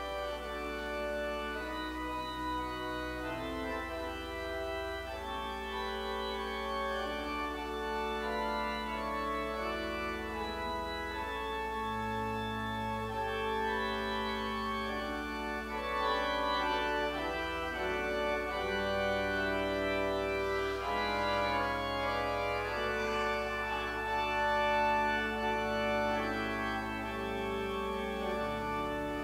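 Church organ playing a hymn in slow, held chords over a moving bass line.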